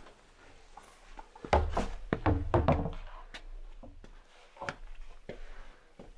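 A cluster of heavy thuds and knocks about one and a half seconds in, followed by a few scattered sharp clicks.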